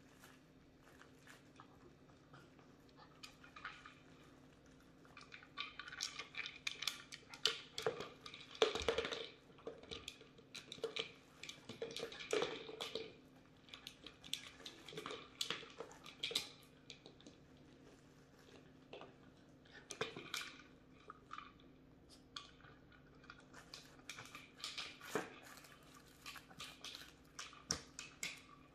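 Bichon Frise puppies working treat-dispensing toys: a treat ball nosed and rolled so its treats rattle, and chewing and mouthing on a broccoli-shaped treat toy. Irregular clicks and clatters, busiest in the first half and again near the end.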